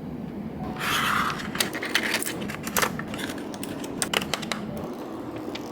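Small household objects being handled: a brief rustle about a second in, then a run of light clicks and taps.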